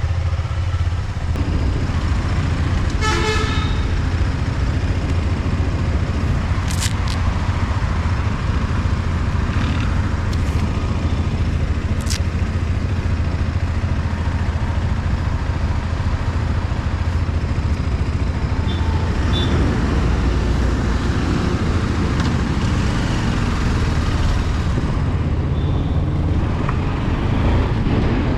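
Motor vehicle on the move along a road, a steady low rumble, with a short horn toot about three seconds in.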